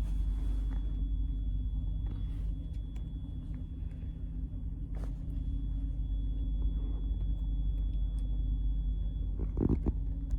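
Steady low rumble of a passenger train running, heard from inside the carriage, with a faint steady high whine and a few light clicks.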